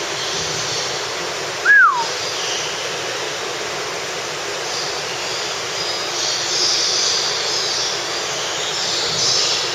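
A bird whistles a single short note about two seconds in, sliding down in pitch. Under it runs a steady rushing background noise.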